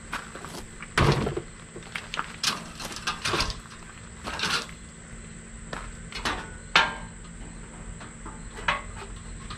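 Irregular light clicks and knocks, a dozen or so scattered over a faint steady hum, the loudest about a second in and another near the seventh second.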